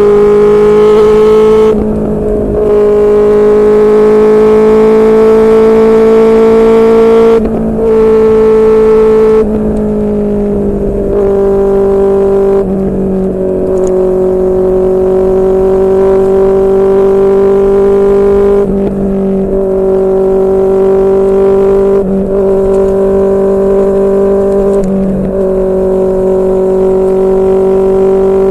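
Inline-four engine of a QJMotor SRK600 motorcycle running through a Yoshimura R11 exhaust at a steady cruise. Its note holds fairly even, rising slightly for a few seconds and then settling lower, and dips briefly several times as the throttle eases.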